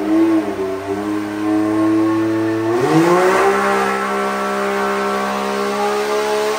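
Can-Am Maverick X3's turbocharged three-cylinder engine running under load on a hub dyno, held at a steady speed, then climbing to a higher steady speed about three seconds in and holding there.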